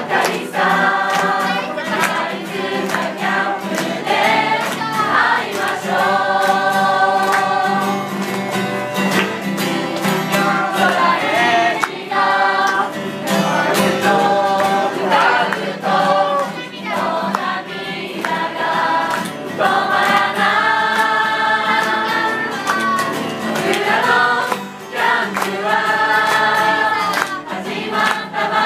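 A group of voices sings a camp song together in phrases of held notes, accompanied by a strummed acoustic guitar.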